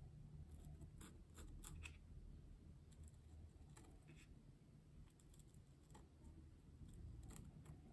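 Near silence with faint, scattered scratches and clicks of a pen marking the center of gravity on a balsa-wood model plane.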